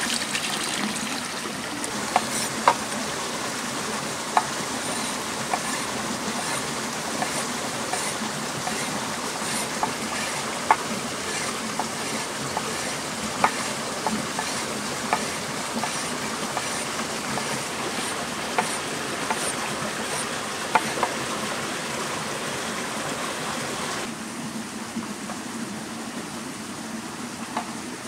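Wood fire crackling under the cooking stone: a steady hiss with sharp, irregular pops about every second. The hiss thins out near the end.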